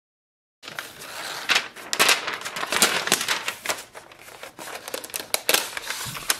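Protective paper wrap being peeled off the underside of a MacBook Pro, crinkling and rustling with many sharp crackles, starting after a brief silence at the start.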